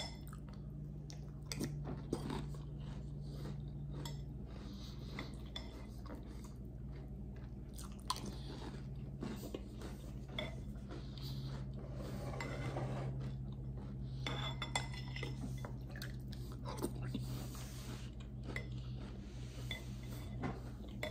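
A person chewing mouthfuls of chocolate puffed cereal in milk, with a metal spoon clinking and scraping against a glass bowl now and then.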